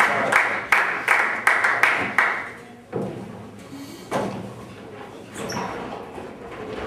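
Spectators clapping in a steady rhythm, about three claps a second, over cheering voices; it stops about two and a half seconds in. Then come two heavy thuds, about a second apart, of nine-pin bowling balls landing on the lanes.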